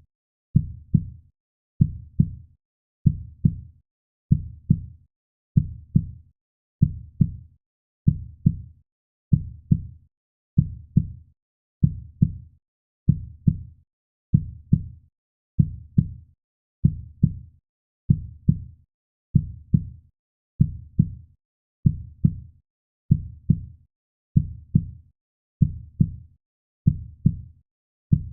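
Heartbeat sound: a steady, slow rhythm of paired low lub-dub thumps, repeating evenly.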